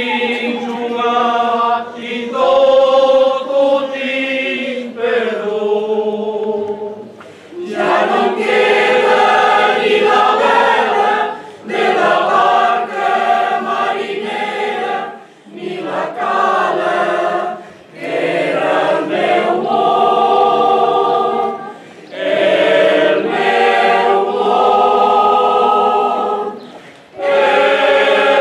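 Mixed choir of men's and women's voices singing a Catalan caramelles song, unaccompanied, in sustained phrases of a few seconds with short breaks between them.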